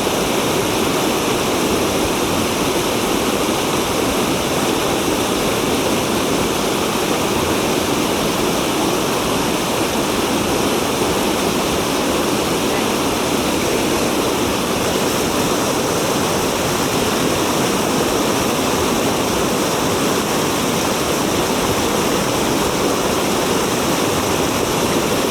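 Mountain stream water rushing steadily over rocks, a constant loud wash of moving water.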